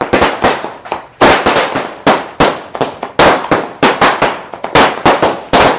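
Firecrackers going off in a rapid, irregular run of sharp bangs, about three or four a second, each fading quickly; the run stops near the end.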